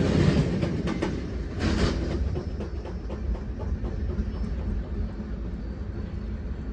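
CSX train's wheels rumbling and clacking over the rails, the loud track noise fading steadily as the train moves away.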